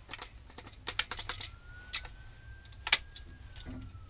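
Hard plastic parts of a paint edger clicking and knocking as the roller head is handled and the lock pushed into place: a scatter of small clicks, with one sharper snap about three seconds in.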